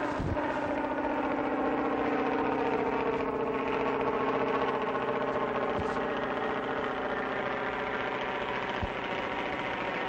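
Piston aircraft engine running at a steady drone, even in pitch and level throughout, with the dull, noisy sound of an old film soundtrack.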